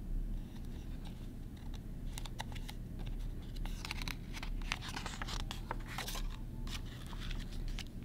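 Paper pages of a picture book being handled and turned: a run of short rustles and crinkles about two seconds in, over a steady low hum.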